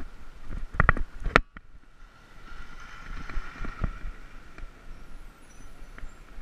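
Rolling road noise from a bicycle-mounted action camera, with three sharp knocks about a second in as the mount jolts over bumps, and a few lighter ticks later.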